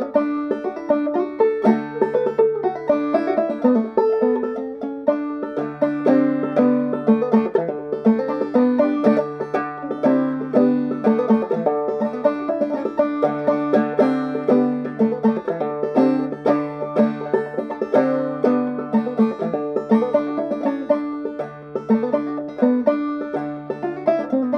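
Open-back banjo played clawhammer style, a brass thimble on the striking finger picking the metal strings: a steady, rhythmic old-time tune of quick plucked notes.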